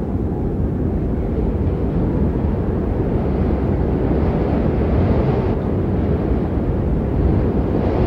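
Strong wind blowing in a steady low rumble, with a brief rise of higher hiss about halfway through.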